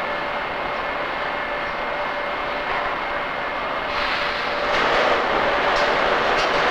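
Steady factory machinery noise with a faint hum, growing louder about four seconds in, with a few short clicks and clinks near the end.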